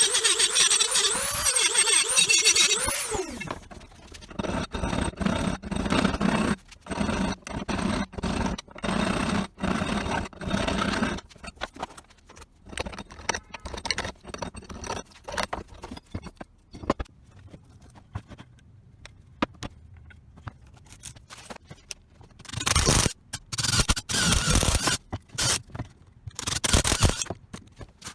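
Workshop tool work on metal or wood: a loud squealing, scraping sound whose pitch wavers for the first few seconds, then short irregular scraping strokes and scattered clicks and knocks, with another run of loud scraping bursts near the end.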